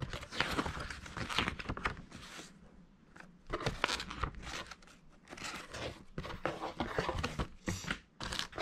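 Paper pages of a printed user guide being turned and handled, rustling and crinkling in irregular bursts with short pauses.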